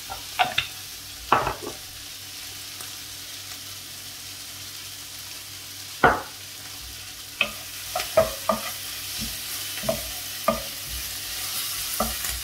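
Sliced peppers and onion sizzling on high heat in a stainless steel sauté pan, with a steady hiss of frying. A wooden spatula stirring knocks and scrapes against the pan a dozen or so times, loudest about six seconds in.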